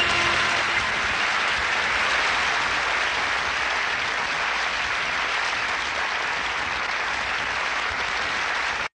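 Studio audience applauding steadily; the applause cuts off suddenly near the end.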